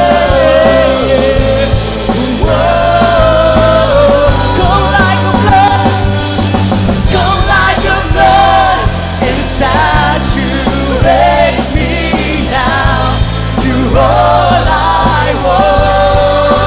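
Live worship band playing a song, with women and a man singing into microphones over the band and drums.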